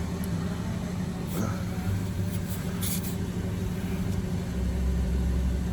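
Steady low hum of an idling car, with two short hisses of air at a tire valve, about a second and a half and three seconds in, during a tire-pressure check.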